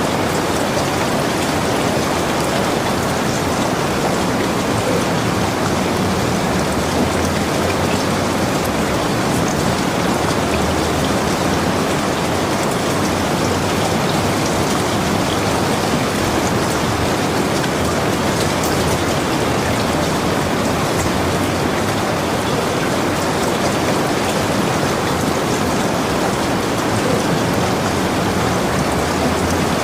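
Steady rain falling, an even wash of many drops that holds the same level throughout.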